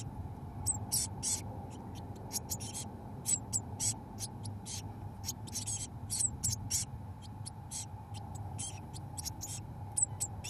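17-day-old blue tit nestlings in a nestbox: an irregular scatter of short, high-pitched cheeps and rustles, several a second. A steady low hum runs underneath.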